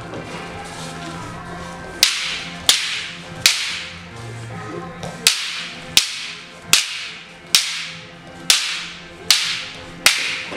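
Wooden martial arts staffs clacking together as two people strike and block. About ten sharp cracks, the first about two seconds in, then roughly one a second, each with a short ringing tail.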